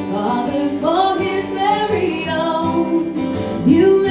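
A woman singing a country gospel song, accompanied by her own strummed acoustic guitar.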